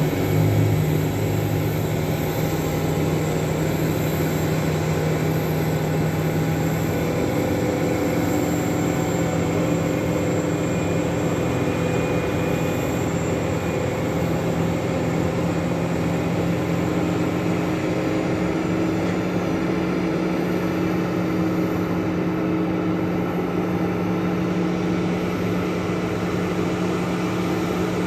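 Boeing 737-800 jet airliner running on the apron during pushback by a tug: a steady jet whine and hum, with a few tones rising slowly in pitch in the second half as an engine spools up.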